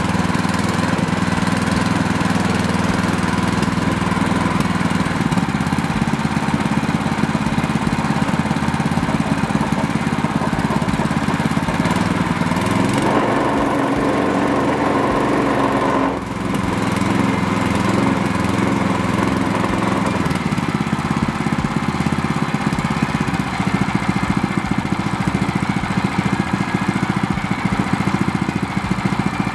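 Jono & Johno 7HP four-stroke engine running steadily at roughly 1700 to 2400 rpm. Its note changes about halfway through as the throttle is moved, and it dips briefly a few seconds later.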